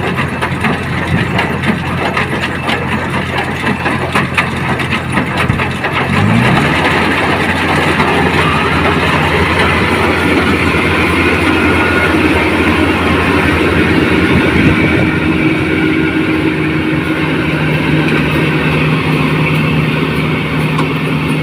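Combine harvester engine running, revving up about six seconds in and then holding a steady higher speed.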